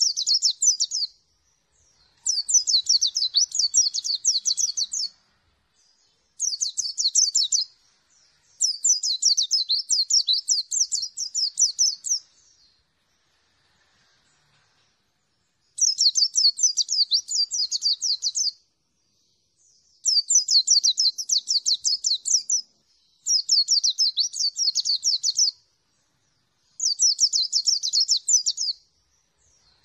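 White-eye (pleci) singing: bouts of rapid, high twittering song, each lasting a few seconds, about eight in a row, separated by short pauses, with one longer pause near the middle.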